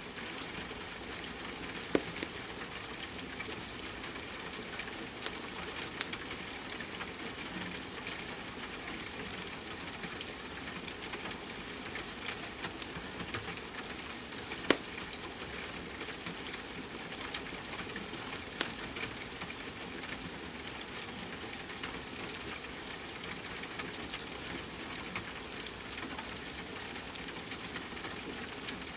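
Steady rain hiss mixed with a wood fire crackling, with sharp pops now and then, the loudest about two seconds in and near the middle.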